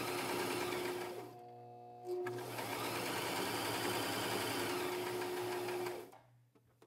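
Brother electric sewing machine running a straight stitch through fabric. It eases off briefly about a second in, picks up again, and stops about six seconds in.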